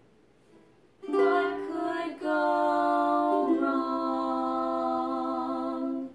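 Ukulele strummed with two women singing long held notes together, the chord and notes changing twice before all stop at once near the end: the song's closing phrase.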